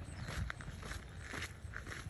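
Footsteps of a person walking on a dirt road: an uneven run of short scuffs and clicks.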